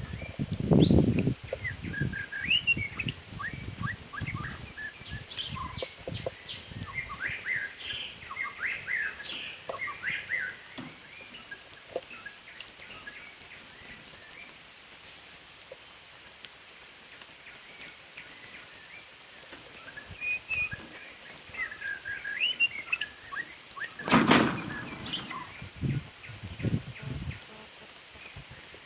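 White-rumped shama giving short chirps and whistles while bathing, with bursts of wing-flapping. The flapping is loudest about a second in and in a loud burst near the end, followed by a few smaller flutters.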